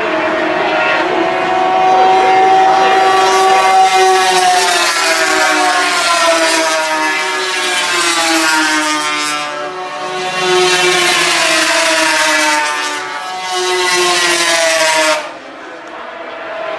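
Several vintage two-stroke racing snowmobiles running hard around an ice oval, their engine pitch rising and falling as they go round. The sound drops away sharply near the end.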